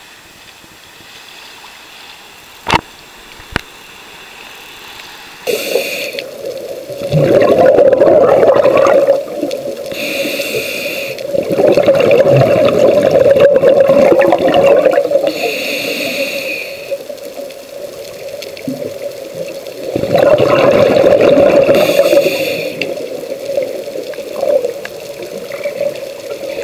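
Scuba diver breathing through a regulator underwater: a short hissing inhale, then a loud rush of bubbling exhale, about four breaths roughly five seconds apart. Before the breathing starts there are a few faint seconds with two sharp clicks.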